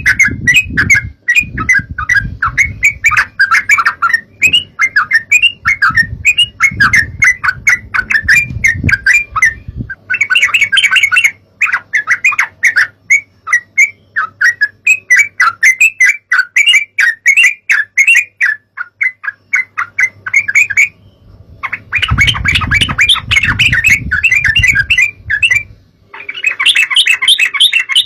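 Yellow-vented bulbuls (trucukan) calling in a dense, rapid chatter of short notes, several birds at once, with brief pauses now and then. A low rumble sits under the calls in stretches near the start and toward the end.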